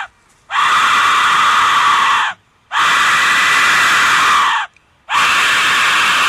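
Aztec death whistle blown hard in three long, harsh, scream-like blasts of about two seconds each, with brief pauses for breath between them. The end of an earlier blast cuts off at the very start.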